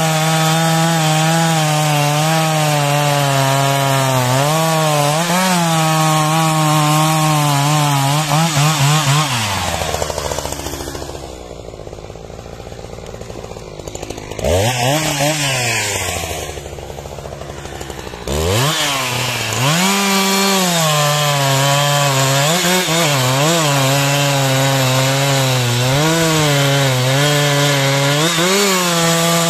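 Husqvarna 372XP two-stroke chainsaw bucking an oak log: engine held at full throttle under load, its pitch wavering as the chain bites into the wood. About ten seconds in it drops to idle as the cut finishes, revs once briefly, idles again, then goes back to full throttle into the next cut near the middle.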